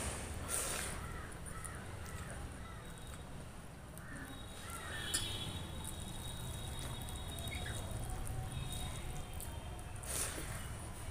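Eating sounds: a hand squishing and mixing rice with curry on a steel plate, and chewing. About ten seconds in, a big handful of rice goes into the mouth with a short loud wet sound.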